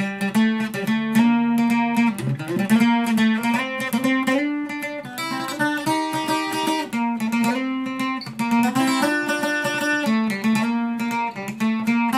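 Requinto guitar played solo: a fast picked single-note melody with many quickly repeated notes.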